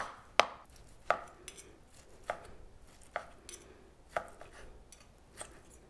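Chef's knife slicing through a cooked chicken breast, tapping on a wooden cutting board with each cut: sharp knocks roughly once a second, unevenly spaced.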